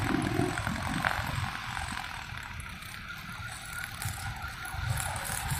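Busy road traffic of cars and motorcycles passing, mixed with a Honda GX35 four-stroke brush cutter running on nylon line as it trims grass along the curb.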